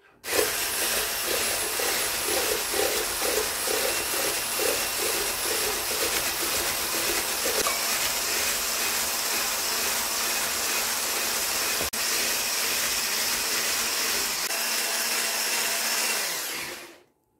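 Electric stick blender with a whisk attachment running steadily, whisking cream and condensed milk as lemon juice is poured in and the mixture thickens to a mousse-like cream. The motor starts right at the beginning and switches off shortly before the end.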